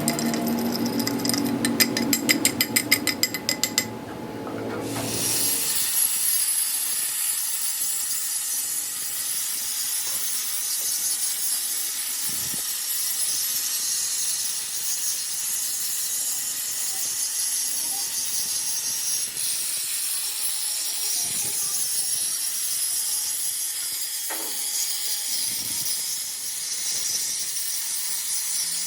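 Workshop tool noise: a fast, even run of mechanical knocks for the first few seconds, then an abrupt change to a steady high hiss with a few faint thumps.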